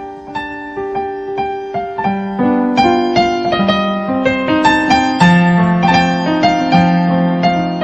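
Background piano music: a gentle melody of struck notes at an even pace, growing louder over the first few seconds.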